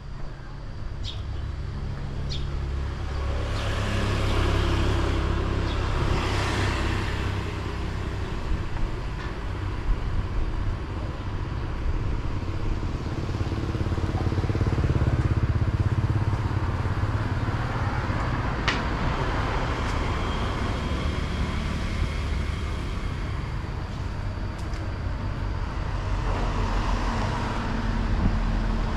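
Road traffic going by, cars and motorbikes, a steady low rumble that swells each time a vehicle passes, three times.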